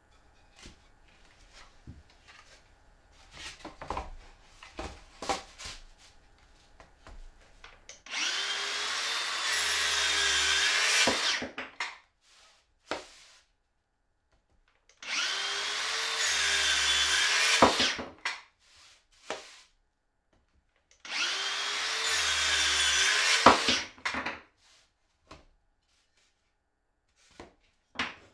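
Wooden board knocked into place, then a Makita KS511D cordless circular saw run three times, each time about three seconds, its motor whine wavering in pitch as the blade cuts through the wood.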